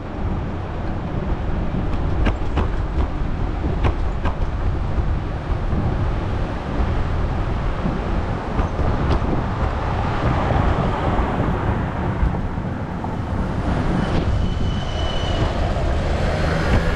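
Wind and road noise of a moving bicycle, heard as a steady rumble with a few sharp rattles in the first few seconds and a short high tone about two-thirds of the way through.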